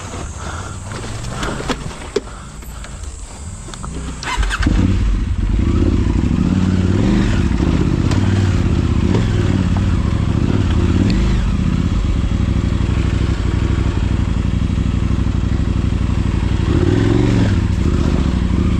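A motor vehicle's engine starts about four and a half seconds in, then runs loudly and steadily at a low, even pitch.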